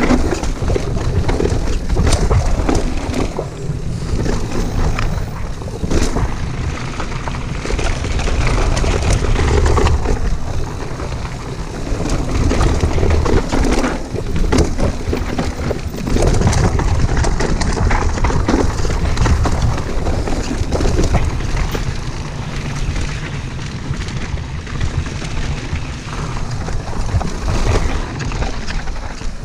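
Mountain bike riding down a rough trail, heard from a chest-mounted camera: steady wind buffeting on the microphone, with tyres on dirt and stones and the bike rattling and knocking over the bumps.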